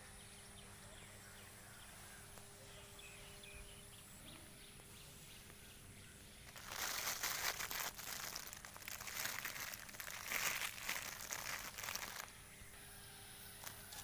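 Rustling, crinkling noise made of many fine crackles, starting about six and a half seconds in and stopping about five seconds later, over a faint steady background.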